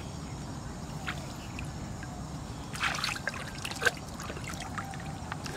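Shallow water splashing and trickling as hands set a plastic bottle float down in it, with a short burst of splashing about three seconds in and a few light clicks.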